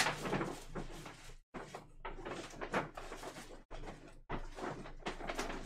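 Irregular bursts of rustling and knocking as things are handled and rummaged through, with a few brief dropouts.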